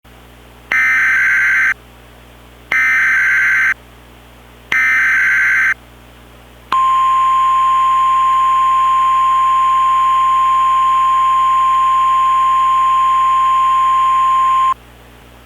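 Emergency Alert System SAME header: three bursts of screechy digital data tones, each about a second long and about a second apart. These are followed by the steady single-pitch NOAA Weather Radio warning tone, held for about eight seconds over a hiss, that comes before a warning message.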